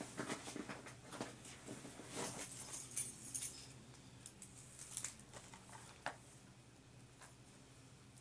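Keys jangling and a key picking and scraping at the plastic wrapping of a Blu-ray case: a run of small clicks and crinkles in the first few seconds, then a couple of single clicks and quieter handling.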